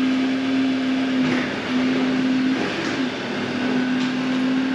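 Pickup truck towing a twin-axle cattle trailer forward against the trailer's applied handbrake, a test of its freshly adjusted drum brakes. It makes a steady drone that breaks off briefly twice near the middle.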